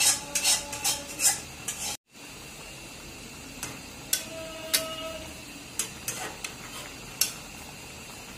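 Fish curry simmering in a nonstick pan, a steady bubbling hiss with sharp clicks and pops: a quick cluster in the first second and a half, then single ones every second or so. The sound cuts out for a moment about two seconds in.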